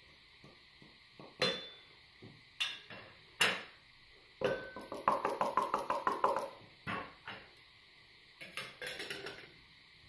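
Ground coffee being tapped out of a grinder's catch container into the glass bowl of a balance siphon coffee maker: a few sharp knocks, then a quick run of rapid taps and clinks against the glass. Near the end come a few more clinks as the metal lid goes onto the glass bowl.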